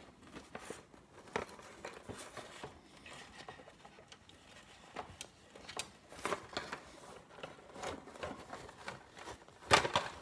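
Scattered small clicks and rustles of hands handling the parts of a Big Mouth Billy Bass toy as it is taken apart, with a louder cluster of clicks near the end.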